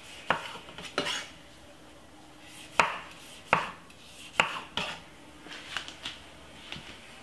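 Chef's knife cutting cherry tomatoes on a wooden chopping board: about six sharp, irregular knocks of the blade on the board, with lighter taps near the end as the tomato halves go into a stainless steel bowl.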